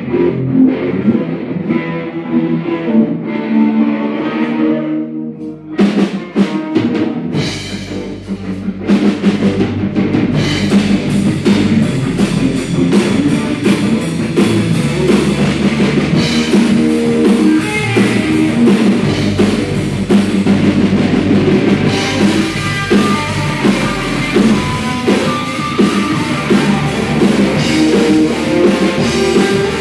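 Live rock band: an electric guitar plays alone at first, then the drum kit comes in about six seconds in with cymbals and bass drum, and the band plays on together.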